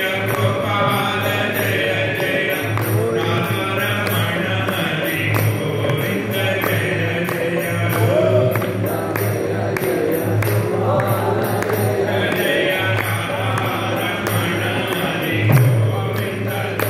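Devotional chanting by two male voices over a two-headed barrel drum, likely a mridangam, played in a steady rhythm, with small metal hand cymbals ringing on the beat.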